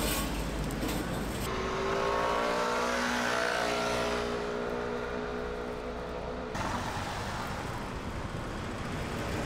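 City street traffic: a motor vehicle's engine hum rises in pitch as it pulls away, holds steady, then cuts off abruptly about six and a half seconds in, over steady traffic noise.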